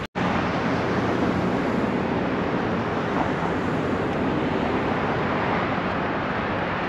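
Steady roar of the Androscoggin River pouring over the Great Falls and through the rapids in high water. It follows a split-second gap at the very start.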